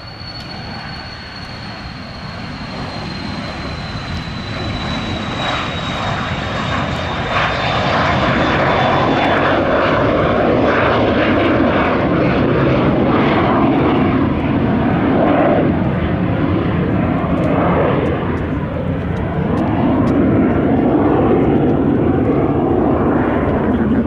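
Embraer Phenom 300 business jet's twin turbofans at takeoff power as it accelerates down the runway and climbs away: a high turbine whine that slides slowly down in pitch over the first several seconds while the roar swells, then holds loud and steady.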